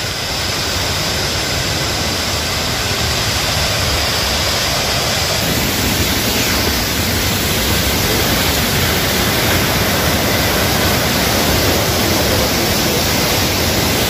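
Steady rushing of a tiered waterfall and its fast river: an even hiss of falling water that holds level throughout.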